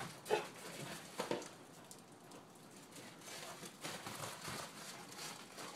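Faint crunching and pattering of footsteps and a dog's paws on crusted snow, with two short, louder sounds in the first second and a half.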